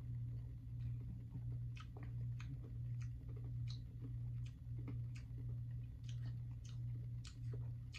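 Hard sour candies being chewed in the mouth, with short sharp crunches and clicks of the teeth, one or two a second. A steady low hum runs underneath.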